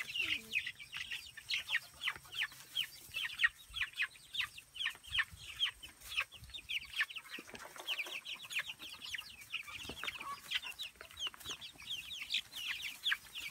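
A flock of young chicks peeping continuously: many short, high, falling peeps overlapping, several a second.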